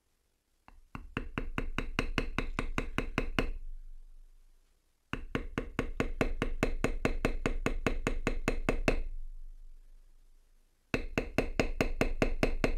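Mallet rapidly tapping a metal beveling tool to bevel a cut line in leather, traditional hand bevelling. The taps come in three runs of about six a second, each tap with a short ringing tone, and each run fades off toward its end.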